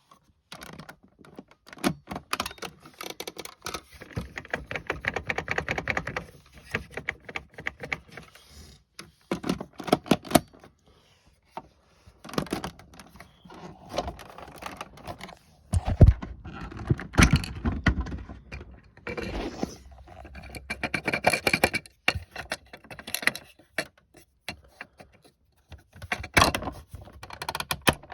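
Toy washing machines being handled: irregular plastic clicking, rattling and knocking, with a heavier thump about halfway through.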